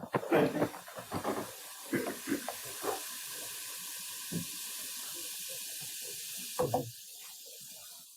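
Steady hiss from an open microphone in a parliamentary chamber, with brief low voices and shuffling under it. The hiss drops away near the end.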